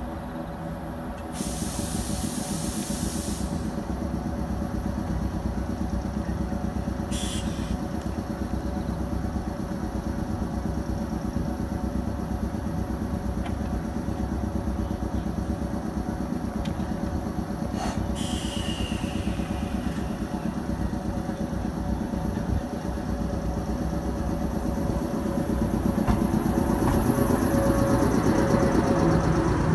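JR 105-series electric train standing at the platform with its equipment humming steadily, a two-second hiss of air about a second in. Near the end it pulls away and the sound grows louder.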